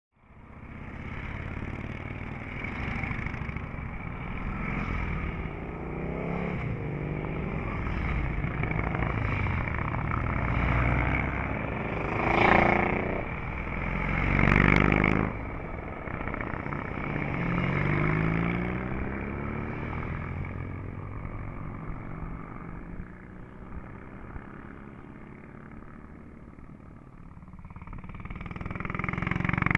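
Vintage and classic motorcycles accelerating away from an intersection, engines revving and pitch rising and dropping as they change gear. About halfway through, two bikes pass loudest, a couple of seconds apart, and another bike builds up near the end.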